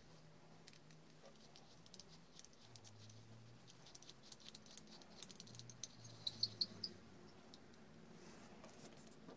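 Faint clicks and metal clinks from a small Stanley 742 clamp-on vice worked by hand: the steel handle bar sliding and knocking in the screw head as the screw is turned, with a quick run of louder ringing clinks about six seconds in.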